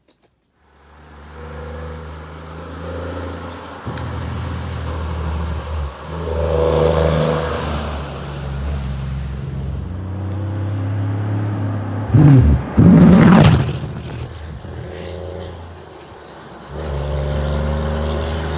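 Heavy truck's diesel engine running, its note breaking off and picking up again several times, with a loud burst of revving about twelve seconds in.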